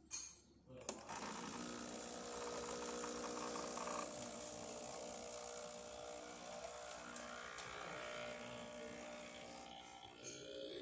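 Two knocks as the portafilter locks into the group head on its new, tight gasket, then the Breville Barista Express's vibratory pump buzzing steadily as it pushes water through the coffee for an espresso shot.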